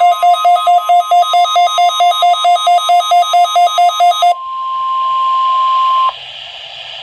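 Weather radio alert: a loud, rapid beeping at about four to five beeps a second, then the NOAA Weather Radio 1050 Hz warning alarm tone held steady for about two seconds and cutting off abruptly. Radio static hiss follows. This is the weekly test of the warning alarm.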